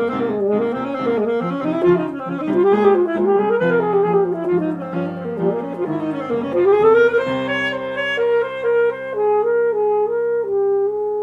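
Chamber music for saxophone, clarinet, flute and piano: the winds play quick runs that rise and fall, then about seven seconds in they settle onto a long held chord with a slow melody moving above it.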